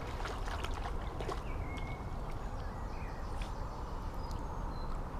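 Small dog paddling in shallow river water, light splashing and dripping in the first second or so, over a steady background hiss. A few short bird chirps come through after that.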